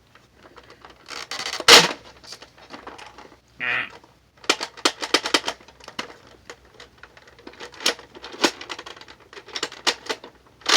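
Plastic bolt-action Nerf blaster cycled empty: the bolt is racked back and forth, making a string of crunchy plastic clicks and rattles, with a louder snap about two seconds in. The owner hears something wrong in the action.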